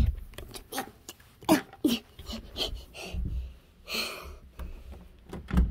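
A person's soft breathing and brief murmured voice sounds, with light clicks and knocks of handling.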